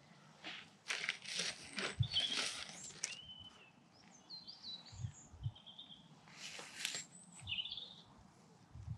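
Scraping and rustling of loose soil as hands work a furrow to set seed potatoes, in a few short bursts with a pause in the middle. Small birds chirp and whistle in between.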